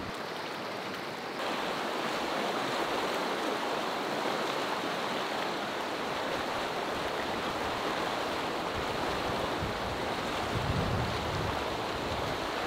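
Fast mountain river rushing over shallow rapids, a steady wash of water noise that grows louder about a second and a half in. A brief low rumble comes through near the end.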